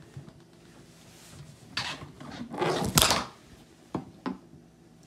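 Portable blender bottle being handled and picked up: a few short rustling, scraping noises, the loudest about three seconds in, then two sharp clicks about a second later.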